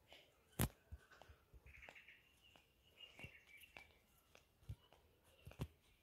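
Near silence with scattered faint clicks and taps, the strongest just over half a second in, and a faint bird chirping in the background for about a second and a half near the middle.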